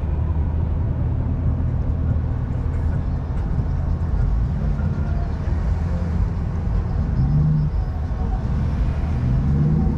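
Steady low hum of vehicle engines and traffic in a parking lot. A higher engine note swells briefly about seven seconds in and again near the end.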